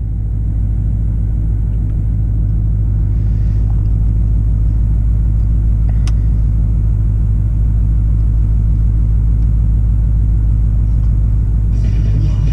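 Ford S550 Mustang GT's V8 engine running steadily with a deep, even rumble that holds one pitch throughout, with no revving.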